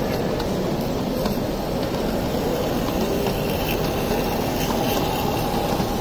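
16mm-scale live-steam model locomotive running past with its train, a steady hiss of steam over the rumble of a busy exhibition hall.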